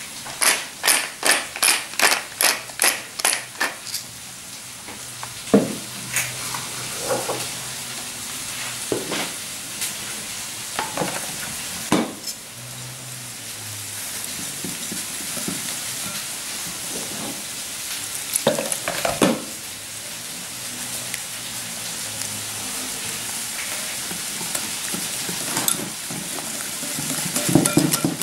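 A whisk stirring chickpea-flour batter in a glass bowl, with a few knocks against the bowl, over a steady sizzle of frying. It opens with a quick, even run of about a dozen grinding clicks, a pepper mill being turned.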